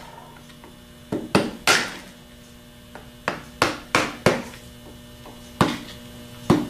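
Hammer striking a dull screwdriver set against the solenoid freeze plug on a Delco 37MT starter, tapping the plug counterclockwise to loosen it: about nine sharp taps in three quick groups. A steady mains hum runs underneath.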